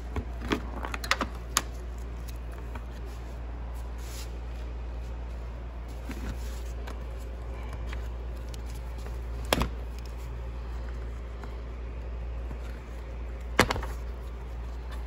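Plastic push clips being popped out of a car's plastic cover by hand: a few sharp clicks and snaps, several in the first couple of seconds, then single ones about halfway through and near the end, over a steady low hum.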